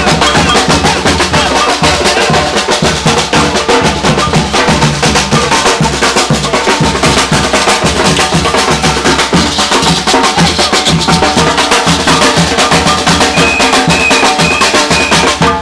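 Batucada percussion ensemble playing a fast, dense drum rhythm, the strokes coming rapidly and evenly.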